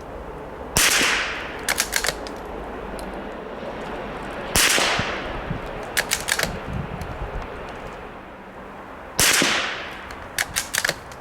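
Savage Mark II .22 Long Rifle bolt-action rifle fired three times, a few seconds apart. About a second after each shot comes a quick run of sharp clicks as the bolt is worked to eject the case and chamber the next round.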